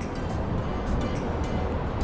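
Background music over a steady low rumble.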